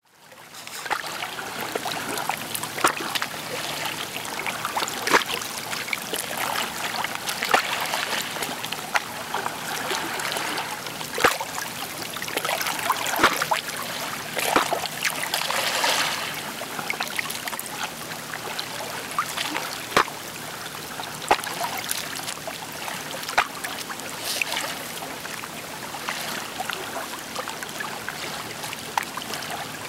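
Small sea waves lapping and splashing at the shoreline, a steady wash with frequent short, sharp splashes and a slightly louder surge about halfway through.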